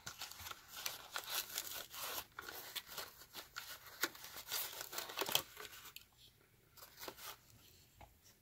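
Rustling and crinkling of packaging being handled, irregular and busiest for the first five seconds or so, then thinning to a few scattered clicks.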